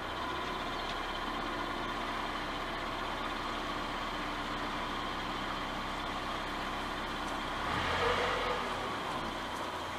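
Narrowboat engine running steadily at slow cruising speed, with a brief surge about eight seconds in.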